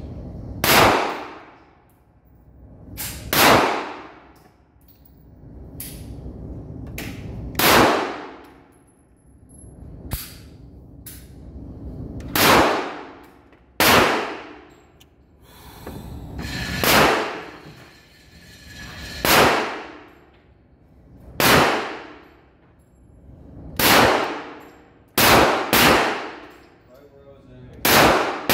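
Steady series of gunshots with bullets hitting steel targets: each strike rings with a metallic clang that dies away over about a second, one roughly every two seconds.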